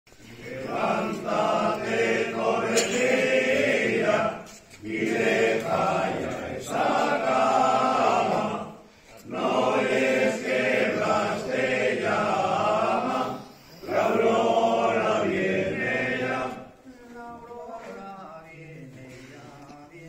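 A group of voices singing a slow traditional dawn hymn (a despertador for San Blas) in four long phrases with short breaks between them, growing quieter near the end.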